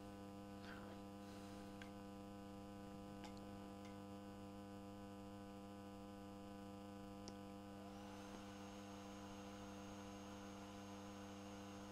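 Low, steady electrical mains hum with a few faint ticks. About eight seconds in, a faint high steady whine sets in and holds.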